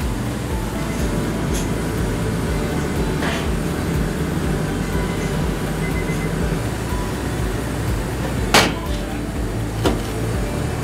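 Steady roar of a commercial dim sum steamer venting steam through stacked bamboo steamer baskets, broken by a few sharp knocks, the loudest late on.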